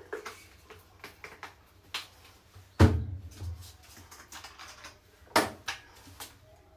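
A run of light clicks and knocks of things being handled. A heavier thud comes about three seconds in and another sharp knock a little after five seconds.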